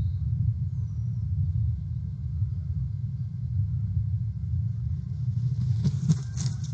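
A bald eagle lands at the nest right beside the camera about five and a half seconds in: a short flurry of wingbeats and rustling sticks with a few sharp knocks. Under it runs a steady low rumble from the nest-cam microphone.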